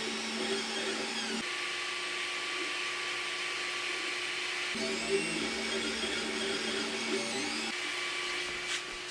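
Desktop FDM 3D printers printing: first the JGMaker Magic, then from about a second and a half in the LOTMAXX SC-10. Stepper motors hum in steady tones that come and go in spells over a constant whir.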